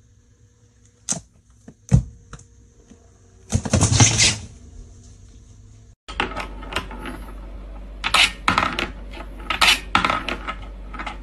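Rapid metallic clinking and rattling of a wooden cat toy's metal wire track and ring as a cat paws at it, starting about six seconds in. Before that, a few separate knocks and a short rustling burst from a cat on a fabric laundry hamper lid.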